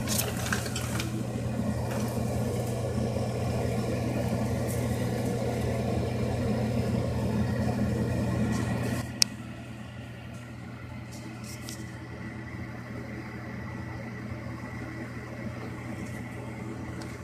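Steady low mechanical hum. About nine seconds in there is a sharp click and the hum drops to a quieter level.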